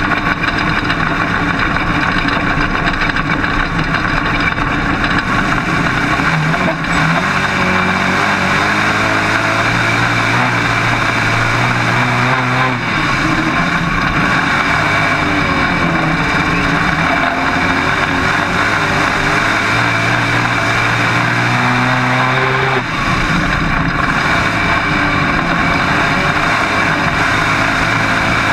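Dirt-track modified race car's V8 engine at racing speed, heard from inside the cockpit over heavy wind and road noise. The engine note rises and falls as the car is lifted for the turns and driven hard down the straights.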